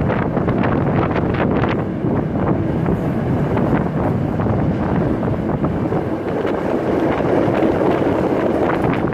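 Wind buffeting the microphone out of the window of a moving steam-hauled passenger train, over the train's steady running noise as it crosses a steel girder bridge, with a few short clicks near the start and near the end.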